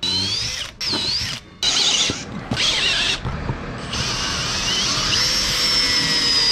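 Makita cordless drill boring holes up through a wooden boat's hull planking, at pilot holes marked from inside. The motor whine comes in several short runs that rise and fall in pitch, and the last run holds for about three seconds.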